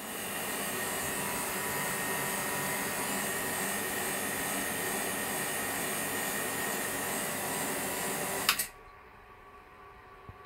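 Electric vacuum pump running with a steady hiss and hum, pumping down the home-made cathode ray tube; it is switched off abruptly about eight and a half seconds in.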